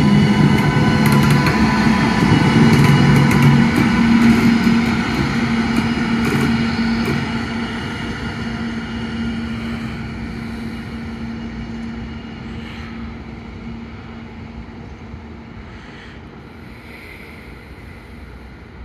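DB class 101 electric locomotive with Intercity coaches moving away: a steady electric hum with several held whining tones and wheel-on-rail noise, loud at first and fading gradually after about seven seconds.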